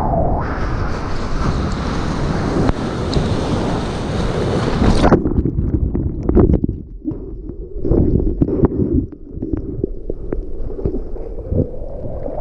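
Breaking whitewater rushing loudly over the surf camera's microphone, cutting off suddenly about five seconds in as the camera goes underwater. After that the turbulent water sounds muffled and low, with scattered knocks and bubbling.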